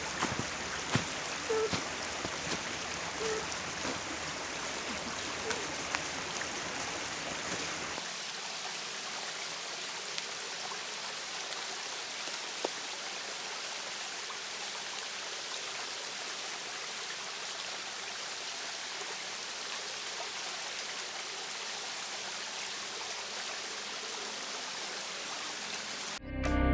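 Stream water running steadily, an even rushing sound, with a few light clicks and drips in the first several seconds; the sound shifts at a cut about eight seconds in and then runs on evenly.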